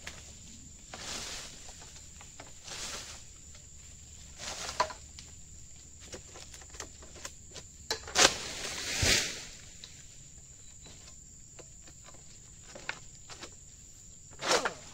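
Long-poled harvesting sickle (egrek) working at the crown of an oil palm: scattered rustling, scraping strokes, a sharp crack about eight seconds in and a heavy thud a second later, and another rustle near the end.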